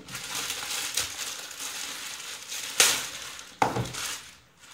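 Plastic courier mailer bag being torn open and handled, a continuous crinkling rustle with two sharp, louder crackles about three and three-and-a-half seconds in. It dies down near the end.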